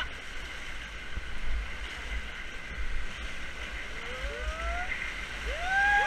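River rapids rushing steadily around an inflatable raft as it runs into big whitewater waves. A voice rises in a long call near the end.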